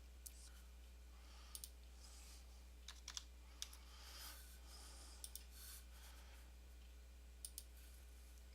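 Scattered sharp clicks of a computer mouse, several in quick pairs like double-clicks, over a faint steady low hum.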